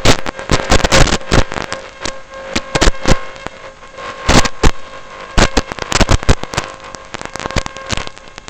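Short bursts of sharp cracks and clicks from a Mech Warfare robot's airsoft BB gun firing, with gaps of about a second between bursts. A faint steady hum runs under it.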